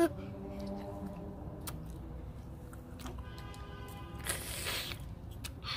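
Chewing a big mouthful of bubble gum: wet, squishy chewing with muffled closed-mouth hums, and a short hissing rustle about four and a half seconds in.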